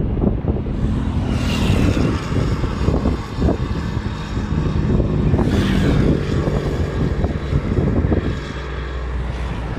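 Wind buffeting the microphone over the rumble of road traffic, with two louder swells as vehicles pass, about a second and a half in and near the middle.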